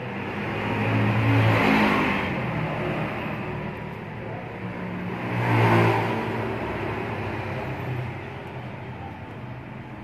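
Two motor vehicles passing by one after the other, each engine sound swelling and then fading away, the louder peaks about four seconds apart.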